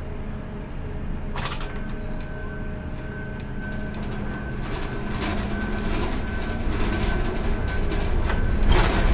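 Ship-to-shore container crane machinery heard from the operator's cab as the trolley travels and hoists the empty spreader: a steady low drone with a faint high whine that comes in about a second and a half in. It grows louder toward the end, with a knock near the start and another near the end.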